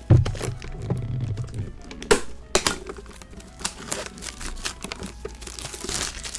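Plastic wrapping crinkling and tearing as it is pulled off a Pokémon card tin, with irregular clicks of handling and a sharp knock about two seconds in.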